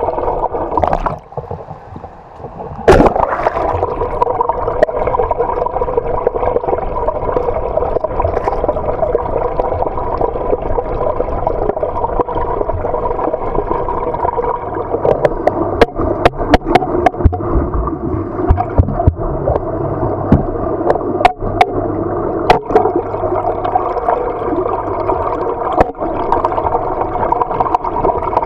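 Muffled, steady rush of water heard underwater in a swimming pool as swimmers stroke and kick past, with sharp clicks now and then, most of them in the second half.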